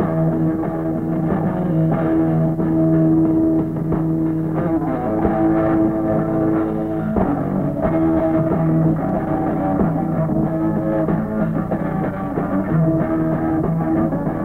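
Rock band playing an instrumental passage on electric guitar, bass and drums. It is an old radio-session recording with little treble, so it sounds dull.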